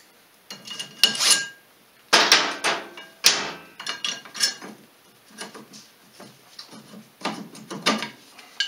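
Steel sockets and hand tools clinking and clattering as they are picked up, set down on a metal bench and fitted onto the axle nut: a scatter of irregular knocks and clinks, the loudest about two and three seconds in.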